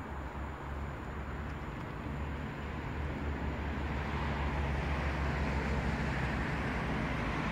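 Electric train approaching along the line, its running noise growing steadily louder over a steady low hum.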